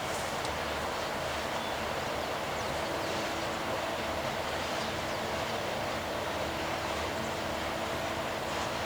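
Loaded freight train passing on a steep upgrade: a steady rail rumble with a low pulsing throb and a steady whine held throughout.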